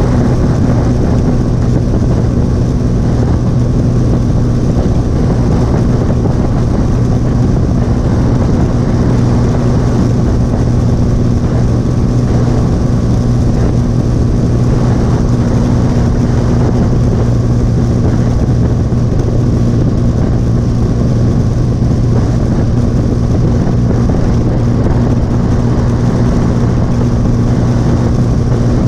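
Motorcycle engine running at a steady cruising speed, a constant low drone that holds its pitch, mixed with a steady rushing noise of wind and road.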